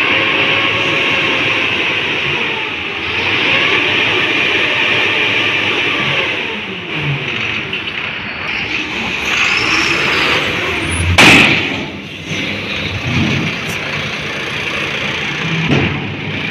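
Eicher tipper truck's diesel engine running, its revs rising and falling, while the raised dump body empties its load of soil. One loud bang about eleven seconds in.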